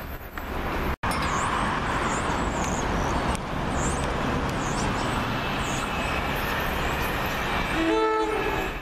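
A steady rushing train noise, then near the end one short blast of a multi-note train horn from an approaching NJ Transit Arrow III electric multiple-unit train.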